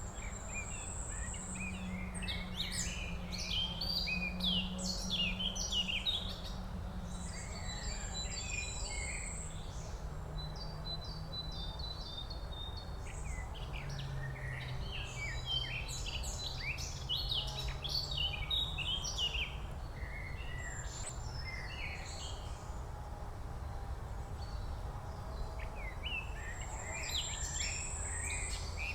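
Several birds singing in woodland: overlapping quick chirps and trills, with an occasional thin high whistle held for a second or so, over a low steady hum.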